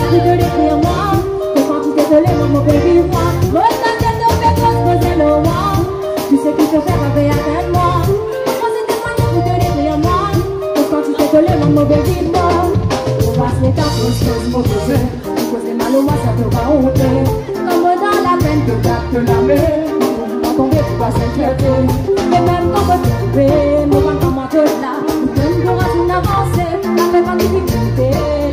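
Live band playing through PA speakers: a woman singing lead over drum kit, bass, electric guitar and keyboard, with a steady pounding beat.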